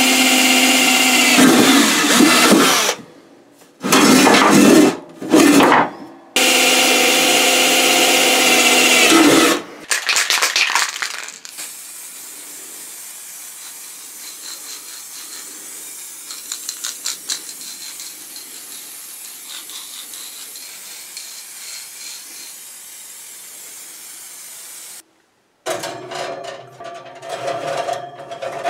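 Power drill boring into the steel lid of an ammo can, run in several bursts a few seconds long with a steady whine. Then a long, much quieter steady hiss, and a clatter of metal near the end.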